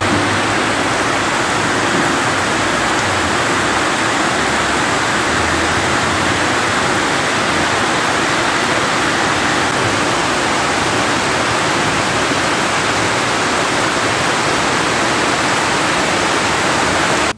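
Heavy rain making a steady, dense hiss, heard from inside a moving vehicle on a wet road. The sound starts and stops abruptly.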